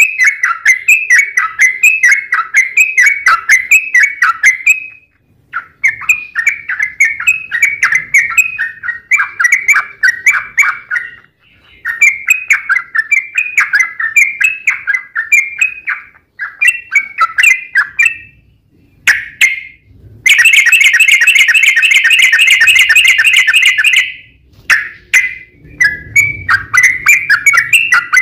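Yellow-vented bulbul (trucukan) singing in long runs of quick chirping notes, a few seconds per phrase with brief pauses between. About two-thirds of the way through comes one unbroken rapid trill lasting about four seconds, the loudest part.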